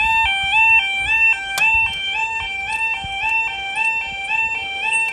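Level crossing audible warning alarm sounding as the crossing closes: a loud electronic two-tone warble stepping rapidly up and down, about four steps a second.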